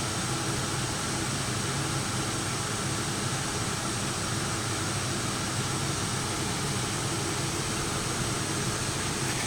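Soleus Air dehumidifier running: steady fan noise with a low hum underneath.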